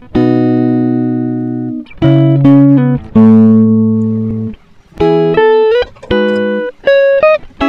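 Background music of plucked guitar chords, each struck and left to ring and fade over a second or so, with short gaps between them.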